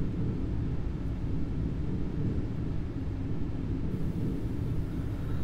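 A steady low rumbling drone, even throughout, with no distinct events.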